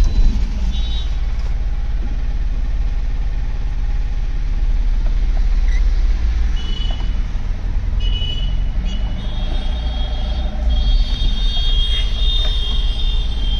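Mahindra Supro mini truck's diesel engine running with a low, steady rumble as the truck pulls away, heard from inside the cab. High-pitched beeping tones come and go over it in the second half.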